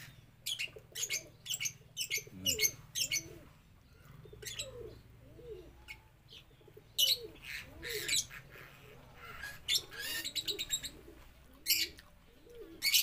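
Close-up eating sounds: wet lip-smacking and chewing clicks as rice is eaten by hand, in quick irregular runs. Low, repeated cooing calls from a bird sound in the background.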